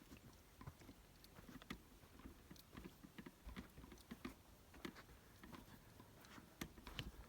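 Faint footsteps crunching in gypsum sand, about one step a second, with small gritty clicks between them.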